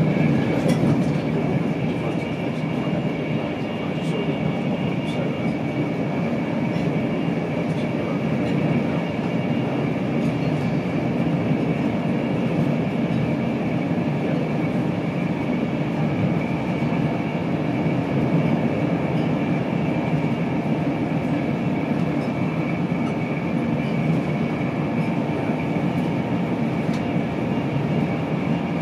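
Steady interior noise of an InterCity 225 Mark 4 coach running at speed: a low rumble of wheels on rail, a faint steady high tone above it, and now and then a faint click.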